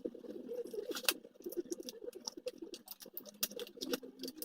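Hex driver backing small hex screws out of the plastic upper plate of a 1/16 scale RC monster truck: a run of light clicks with faint squeaks as the screws turn.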